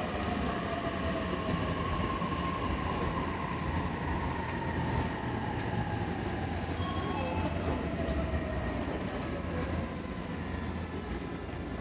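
Odakyu 8000 series electric train standing at the platform, its onboard equipment giving a steady low hum, with several faint whines slowly falling in pitch over it.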